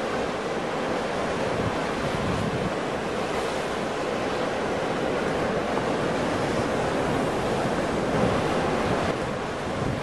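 Ocean surf: waves breaking and churning, a continuous rushing wash that swells a little near the end.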